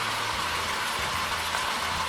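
Beef mince and chopped vegetables sizzling steadily in a frying pan.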